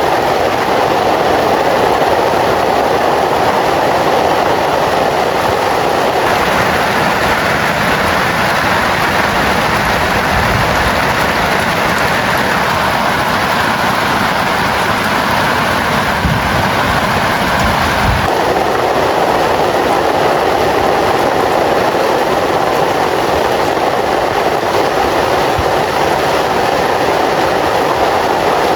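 Heavy rain pouring down steadily, a loud, dense, even hiss. Its tone changes abruptly twice, about six seconds in and again around eighteen seconds.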